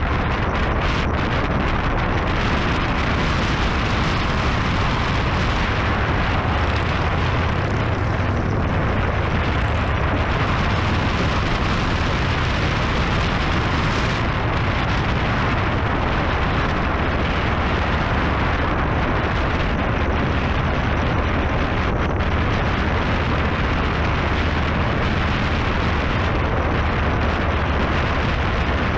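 Motorcycle engine running steadily at road speed under a heavy rush of wind on a bike-mounted camera's microphone.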